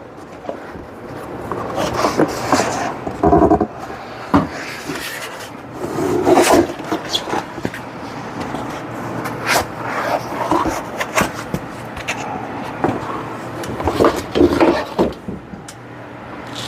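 Unpacking noise as an LED grow light is lifted out of its box and unwrapped: cardboard and packing material scraping and rustling, with scattered knocks and clicks.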